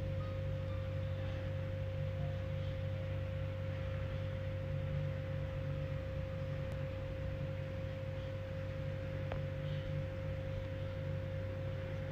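Steady hum: a low drone with one constant clear tone above it, unchanging throughout, and a couple of faint ticks.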